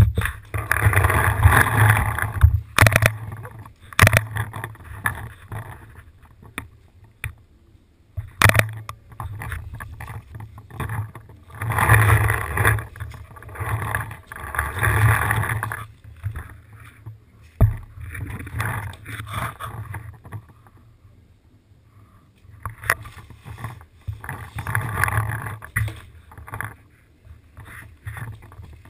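Rustling and rumble of a paintball player moving about with the camera worn on the body, in three long bursts, with a few sharp pops between them.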